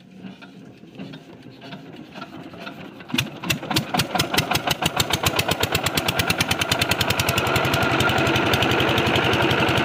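Small diesel water-pump engine being started: it turns over with a weak, uneven chugging for about three seconds, then fires and runs with fast, sharp, regular beats that quicken and settle into a steady run.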